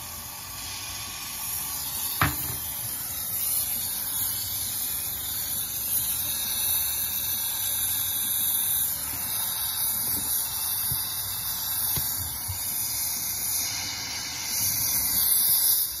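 Small oxy-fuel jeweller's torch lit and burning with a steady hiss while heating a silver buckle to flow solder onto its fittings. One sharp click about two seconds in; the hiss grows a little louder near the end.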